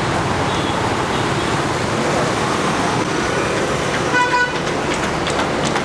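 Street traffic noise, mostly motorbikes passing, with a short horn toot about four seconds in.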